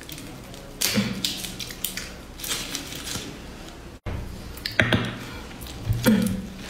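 Dry bamboo-leaf wrapper of a zongzi crackling and rustling as it is peeled off by hand, in a few short bursts. After an abrupt cut come several sharp clicks and a sticky squish as chopsticks pull at the sticky rice.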